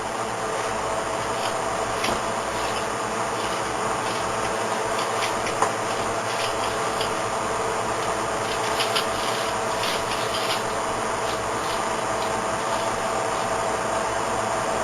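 A steady hiss with faint scraping and small sharp clicks scattered through the first two-thirds: a bobby pin being worked in locked steel handcuffs, picking them open.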